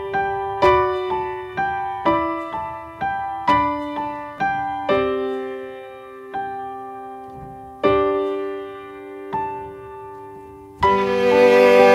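Background music: a solo piano playing a slow melody of single struck notes, each fading away. Near the end a fuller, louder arrangement comes in.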